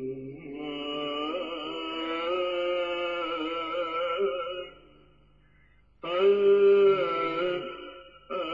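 Slow religious chant sung in long held notes. It comes in phrases: a long one, a pause of over a second about five seconds in, then a new phrase, with a short break near the end.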